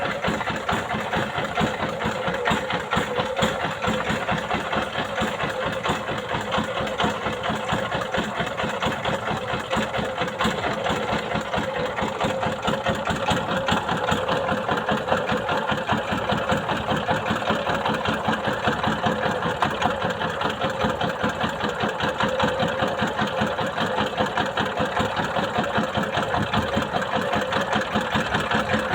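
A boat's engine running steadily with a rapid, even beat.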